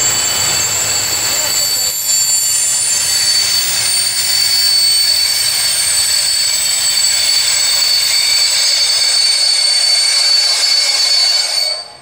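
Container freight train rolling past close by, its wagon wheels giving a steady high-pitched squeal over the rumble of the wagons. The sound cuts off abruptly near the end.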